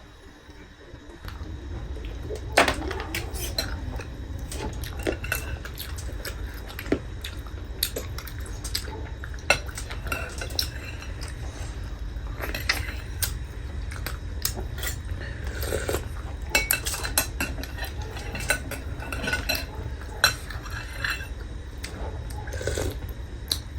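Cutlery clicking and clinking against dishes again and again while eating, over a steady low hum that starts about a second in.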